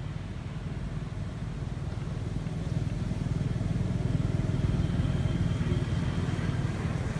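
Low rumble of a motor vehicle engine, growing louder over a few seconds and easing off near the end.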